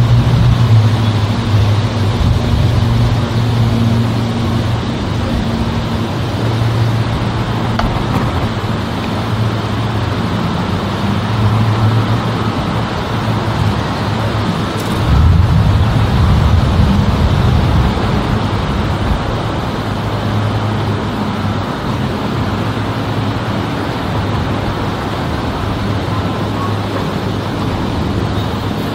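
Distant Pilatus PC-12/45 single-engine turboprop with a four-bladed propeller cruising high overhead: a steady low propeller drone whose hum wavers in strength, swelling a little about halfway through.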